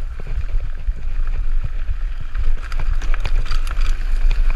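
Mountain bike riding down a dirt singletrack: wind rumble on the microphone and tyre noise on the dirt, with frequent sharp clicks and rattles from the bike over bumps, getting busier after about two seconds.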